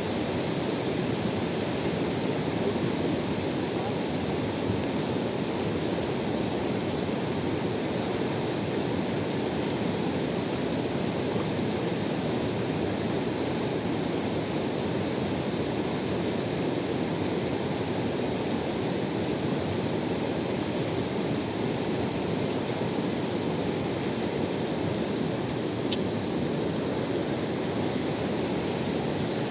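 Steady rush of a fast-flowing river running over rocks, with one faint click near the end.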